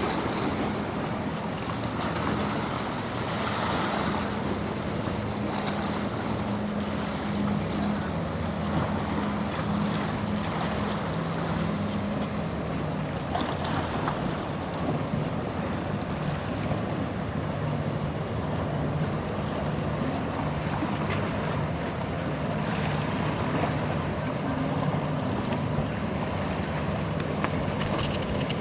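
Boat engine running with a steady low hum that drops slightly in pitch about halfway through, over the wash of surf and wind on the microphone.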